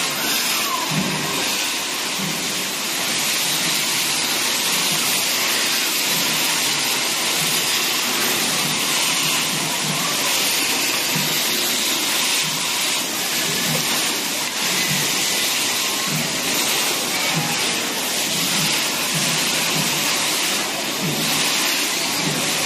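Many handheld firework fountains spraying sparks at once, making a dense, steady hiss that does not let up.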